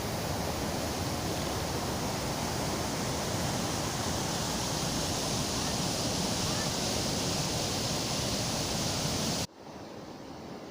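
Ahinkoski waterfall on the Tohmajoki river, water pouring over the falls in a steady, loud rush. About nine and a half seconds in it drops suddenly to a much quieter rush of water.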